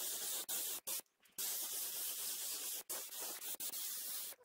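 Polyurethane lacquer being sprayed: a steady spray hiss, broken by several short pauses as the spray is let off, the longest about a second in, stopping at the end.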